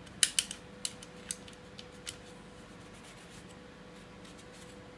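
A few sharp clicks and taps in the first two seconds as the parts of a KSC Glock 19 airsoft replica are handled and wiped with a cloth, then only a faint steady hum.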